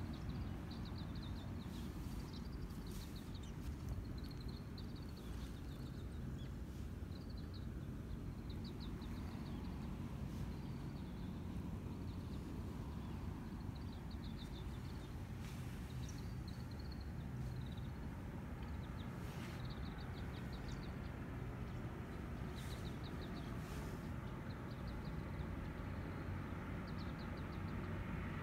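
Steady low rumble with a short, rapid, high chirping trill repeating every second or two.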